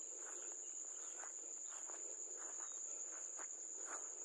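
Steady high-pitched trill of insects in a rice field, with faint soft footsteps brushing through grass on a paddy bund.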